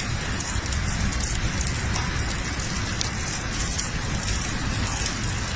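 Heavy hail pelting down, a dense steady clatter of hailstones striking hard surfaces with the odd sharper hit.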